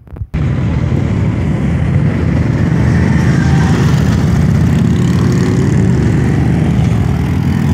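Motorcycle engines running loudly at close range: a dense, steady low rumble of rapid firing pulses that cuts in abruptly just after the start.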